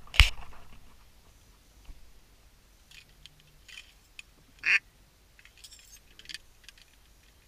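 A shotgun shot just after the start, its report fading over about a second, followed by a few short, scattered duck quacks.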